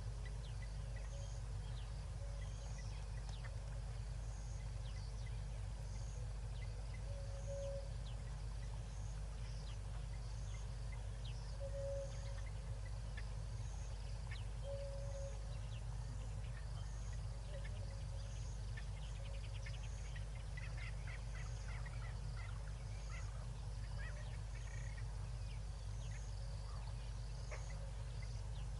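White-faced whistling duck ducklings peeping, in a dense run of short high peeps in the latter half. Underneath is a steady low hum, a short high chirp repeating about once a second, and a short lower note every few seconds in the first half.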